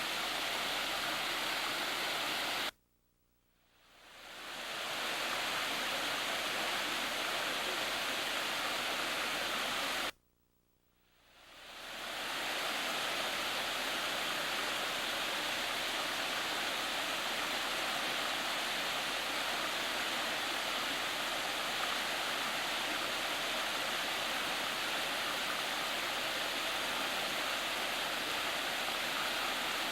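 Roaring Fork Falls, a waterfall, giving a steady, even rush of falling water. The sound cuts out suddenly twice, about three seconds in and again about ten seconds in, and each time fades back in over a second or so.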